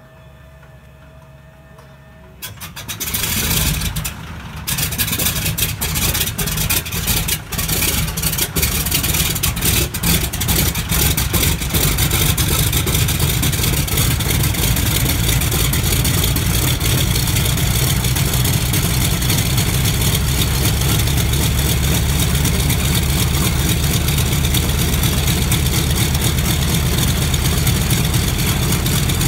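Douglas C-47's Pratt & Whitney R-1830 Twin Wasp radial engine starting: after a faint steady whine, it catches about two and a half seconds in with uneven coughing and popping. It then settles after about ten seconds into a loud, steady, low idle.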